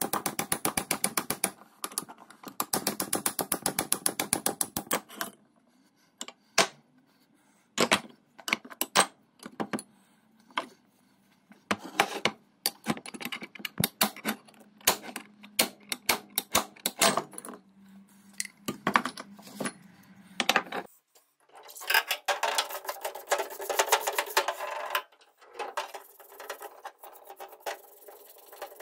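Rapid metallic clicking as an antique beam drill's cast-iron bevel-gear mechanism is turned and worked by hand, then scattered sharp clicks and taps of metal parts being pried and knocked apart with a hand tool. About two-thirds of the way in the clicks give way to a stiff brush scrubbing the bevel gear in soapy water.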